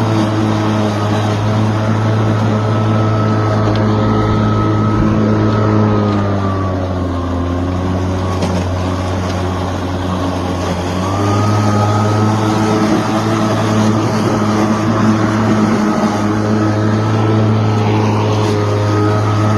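Greenworks 80V cordless lawn mower's brushless motor and blade running steadily while mowing, with a steady hum and whine. About six seconds in, the pitch sags for a few seconds and then climbs back to full speed.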